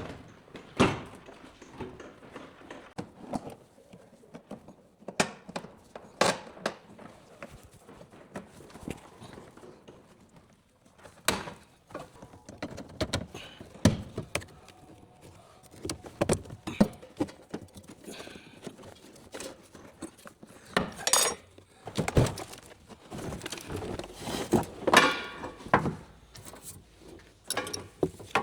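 Irregular clinks, knocks and clatter of metal tools and car body parts being handled, louder bunches of knocks about two-thirds of the way in and near the end.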